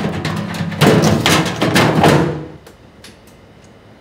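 Large thin sheet-metal exhaust duct clattering and banging as it is lifted overhead and fitted into place: a dense run of rattling metal knocks with some ringing that dies away after about two and a half seconds.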